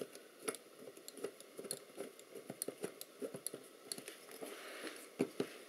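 Small screwdriver turning tiny screws with washers into the metal frame of a Penny and Giles accelerometer: faint, irregular clicks and light scrapes of metal parts, with two slightly louder clicks near the end.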